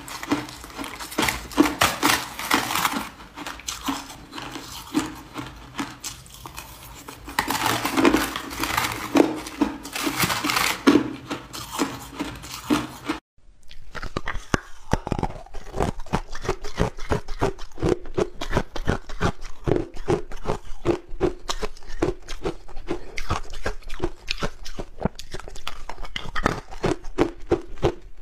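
Close-up crunching of ice being bitten and chewed, loudest in clusters around 1–3 s and 8–11 s. A brief dropout comes about 13 seconds in, followed by a steady, dense run of crunches as hard ice chunks are chewed.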